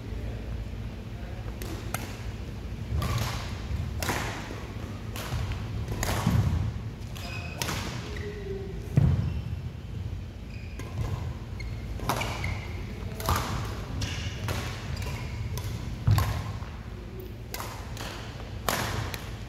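A badminton rally: a racket striking a shuttlecock in a string of sharp hits at roughly one a second, with heavier thuds of players' feet landing on the court.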